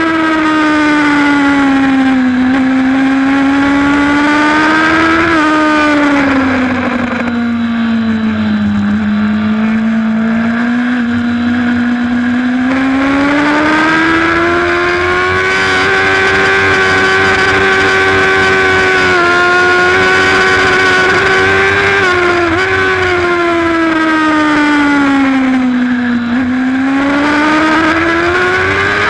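Racing superbike engine heard onboard, its revs falling as it slows for corners and climbing again under acceleration several times over, with a long high-revving stretch in the middle broken by brief dips at gear changes.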